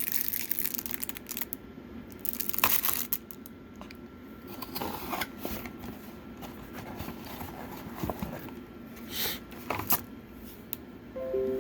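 Packaging being handled: plastic wrapping crinkling and rustling, with scattered light knocks and clicks as items are lifted out of a box.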